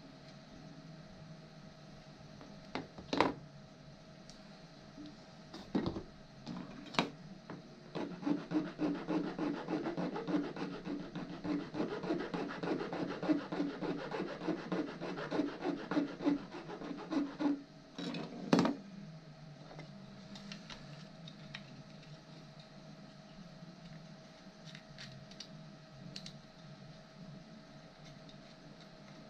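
A 3D-printed plastic part smoothed by hand with quick back-and-forth rubbing strokes, about two to three a second for roughly ten seconds. A few sharp knocks come before the strokes and one loud knock after them, over a faint steady hum.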